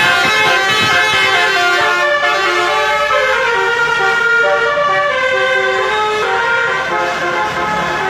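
Two basuri telolet horns, the multi-note melodic air horns of Indonesian buses and trucks, sounding together and playing a tune of held notes that step up and down in pitch.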